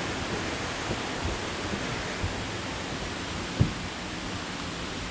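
Steady rushing of water from a nearby river or waterfall, with a few soft low thumps and one sharper thump about three and a half seconds in.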